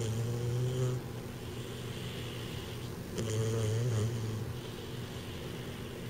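American Bulldog puppy snoring in his sleep: two loud snores about three seconds apart, each about a second long, with softer breaths between. The owner puts the snoring down to his big overbite.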